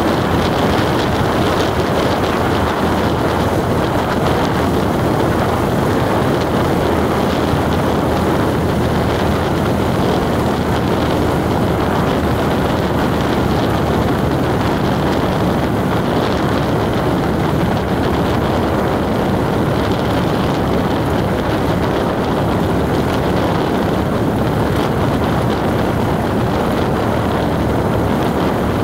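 A vehicle driving at a steady pace: a loud, constant rushing drone that never pauses or changes.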